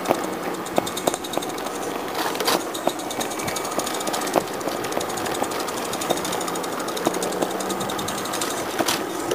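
Roundhouse Elsa live-steam garden-railway locomotive running along the track: a rapid, even patter of exhaust beats and clattering motion, with sharp clicks now and then.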